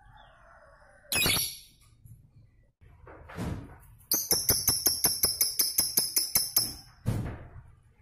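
Lovebird calling: a sharp shrill squawk about a second in, a rougher call a couple of seconds later, then a rapid run of piercing high chirps, about six a second for some two and a half seconds (the long 'ngekek' chatter), and one more short squawk near the end.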